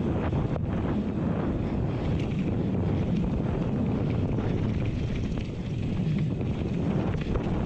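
Wind buffeting the microphone of a mountain biker's camera on a fast trail descent, with steady tyre and riding noise over dirt and occasional clicks and knocks from the bike.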